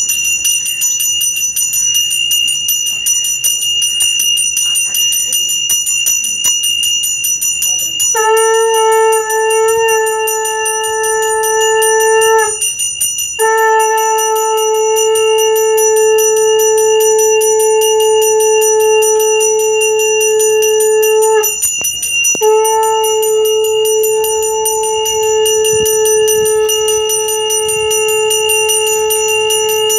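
Brass hand bell rung continuously in Hindu arati worship, a bright unbroken ringing. From about eight seconds in, a conch shell is blown over it in three long steady blasts with short breaks between them, its pitch dipping as each blast ends.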